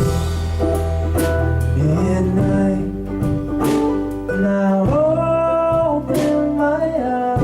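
A live band playing a song, with plucked strings over bass; a long held note bends in pitch about five seconds in.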